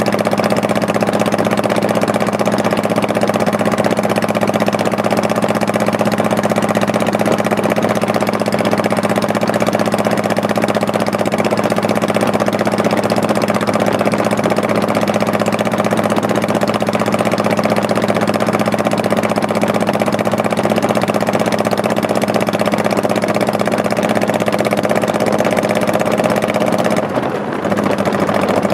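Honda Shadow Spirit 1100's V-twin engine running steadily under way, its pitch holding even; near the end the sound dips briefly, then picks up again.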